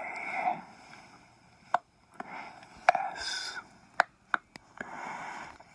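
Close-miked ASMR mouth sounds: a string of sharp, wet clicks spaced irregularly, with soft breathy whisper-like noise in between.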